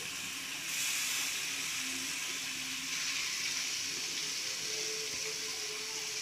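Masala-coated neiparai fish steaks sizzling in hot oil in a flat pan: a steady hiss that swells about a second in, as another piece is laid into the oil.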